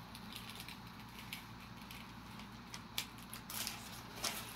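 Hobby knife blade drawn through a thin printed balsa sheet: faint scratchy cutting strokes, then a few louder short crackles and scrapes near the end.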